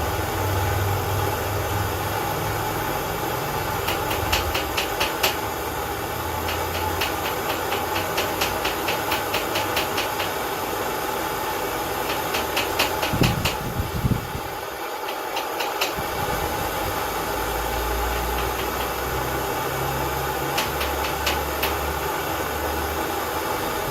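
Light hammer taps on a thin steel lock pick against an anvil to straighten it, in quick runs of several taps a second, twice. Underneath is the steady rushing noise of the small brick forge's burner.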